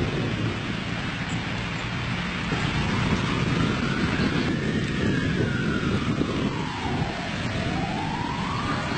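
Strong wind buffeting the microphone with a steady low rumble. About two and a half seconds in, an emergency-vehicle siren starts wailing, rising slowly, falling, then rising again.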